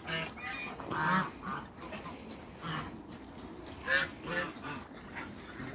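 A flock of domestic ducks and geese calling: a run of short, irregular calls, the loudest about a second in and again about four seconds in.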